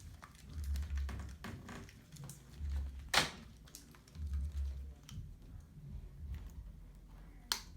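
A scattered series of light taps and clicks with dull low thumps, like handling and tapping at a table; one sharper click about three seconds in and another near the end.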